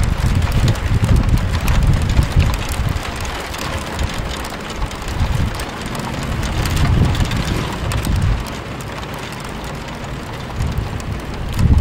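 Rain falling, with many small drop ticks, and gusts of wind buffeting the microphone in an uneven low rumble.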